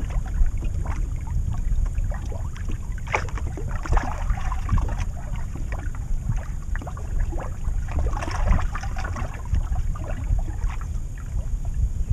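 Wind buffeting the microphone over water lapping against a fishing boat's hull, with scattered short splashes or knocks, the clearest about three, four and eight seconds in.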